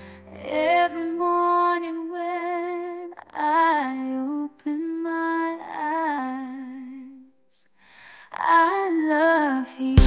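Female voice singing a slow, tender pop-ballad melody in short phrases with pauses between them. The sound drops almost to silence briefly about three-quarters of the way through.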